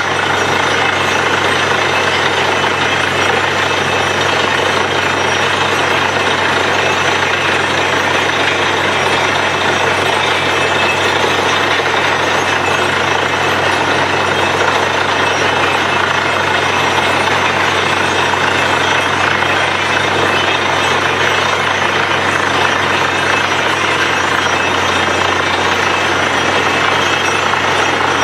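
Bore well drilling machine running steadily, a continuous mechanical noise with a low engine hum under it and no change in pace.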